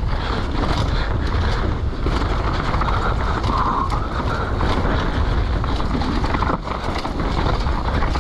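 Downhill mountain bike running fast over rough trail: a steady rumble of tyres on dirt with constant rattling and knocking from the bike, and wind buffeting the camera's microphone.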